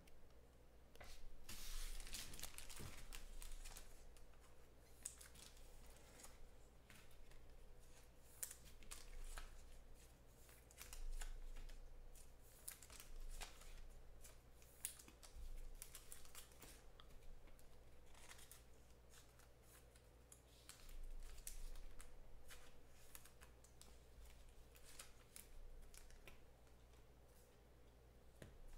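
Faint, irregular rustling, sliding and clicking of trading cards being handled and sorted by hand on a tabletop, with a few louder flurries of handling.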